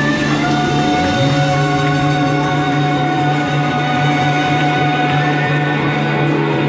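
Live band playing amplified music: held chords and sustained notes, with no drum hits, changing chord about a second in.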